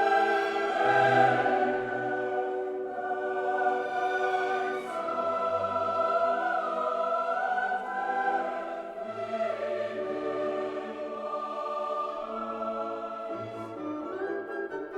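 Background choral music: voices singing long held notes in chords over a low bass line.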